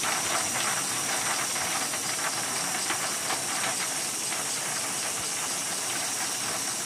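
Small geared electric motor of a COMPATT sonar transponder's release mechanism running, driving its big brass gear round. It makes a steady hissing whir with faint fine ticking. This is the release test, which turns the mechanism once until it hits its limit switch.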